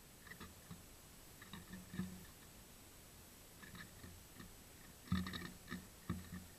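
Eurasian nuthatch pecking at suet crumbs on a wooden rail: irregular clusters of soft taps and knocks, the loudest a little after five and six seconds in.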